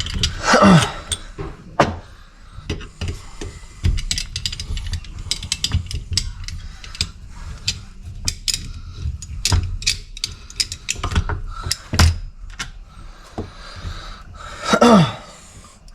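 Hand tools clicking and clinking on a tractor hydraulic auxiliary valve as it is being taken apart, in irregular sharp ticks and knocks.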